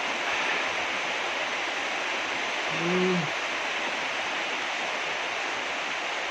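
Rain falling hard, a steady hiss throughout, with a brief low hum about three seconds in.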